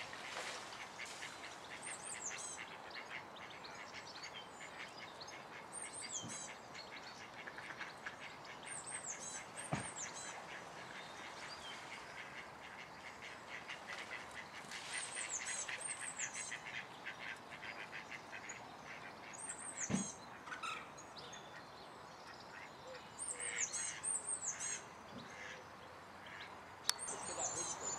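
Birds calling: short bursts of high chirps and rapid trills come every few seconds, with a couple of soft knocks in between.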